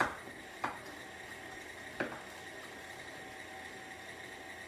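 Knife chopping pecans on an end-grain wooden cutting board: three sharp knocks of the blade on the wood, the first two close together and the third about two seconds in.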